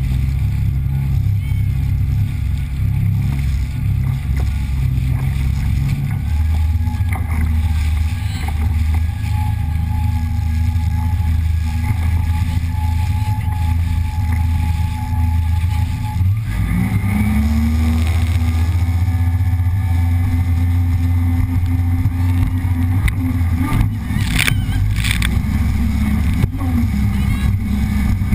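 Personal watercraft engine running steadily at low speed, then revving up about halfway through as the craft accelerates.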